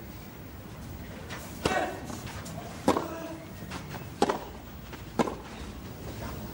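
Tennis ball struck back and forth by racquets in a baseline rally: four sharp hits a little over a second apart.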